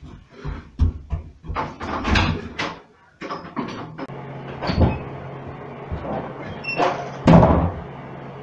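A rapid run of knocks and bumps for about three seconds, then a steady low hum with a few louder thumps over it.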